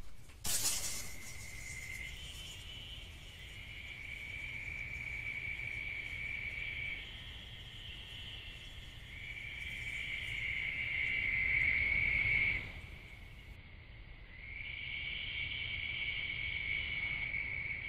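A night animal's high, steady trill, coming in long stretches of a few seconds each with short pauses between, the middle stretch growing louder before it stops abruptly. A short click sounds about half a second in.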